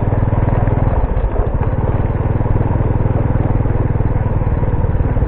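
Cicadas calling with a loud, steady, rapidly pulsing buzz.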